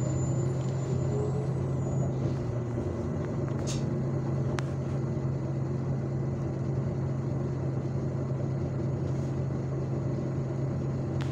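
Inside the cabin of an IVECO Urbanway 18 m articulated city bus: the engine running with a steady low hum as the bus moves slowly, with a couple of faint clicks.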